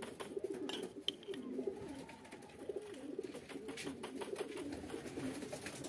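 Homing pigeons cooing, several low wavering coos overlapping. Faint scraping ticks of a metal spoon working feed through a wire-mesh sieve.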